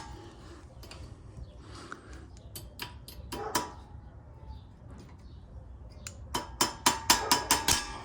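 Pliers clinking against a steel cotter pin on a tie rod end while its legs are bent over. A few scattered clicks come first, then a quick run of about a dozen sharp, slightly ringing metal taps near the end.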